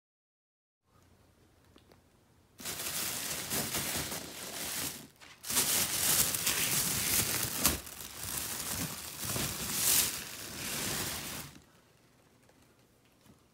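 Crinkling, rustling noise in long bursts, with a short break about five seconds in, dying away near the end.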